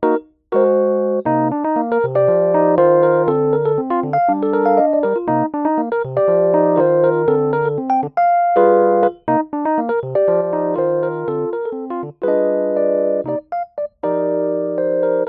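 Background music: a keyboard or electric piano melody with chords, the notes short and clipped, with brief breaks between phrases.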